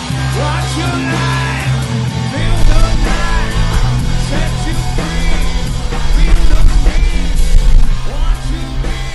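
Rock background music with guitar, bass, drums and a sung vocal line. The bass and drums come in heavier about two and a half seconds in.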